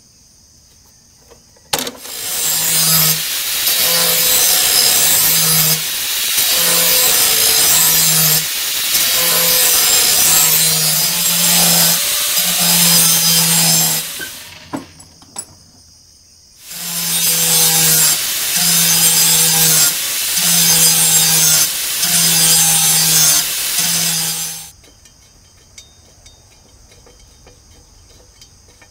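Black & Decker angle grinder sharpening a Snapper walk-behind mower blade. There are two long grinding runs, about 13 s and then about 8 s, with a short stop between. A low pulse comes about once a second as the grinder is worked along the blade's edge.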